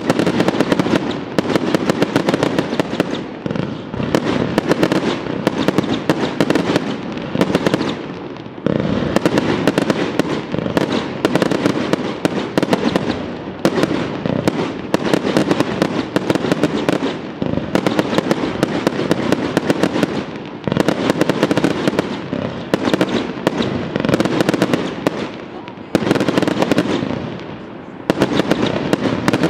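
Aerial fireworks display: a rapid, dense barrage of shell bursts and crackling, easing off briefly every five or six seconds before building again.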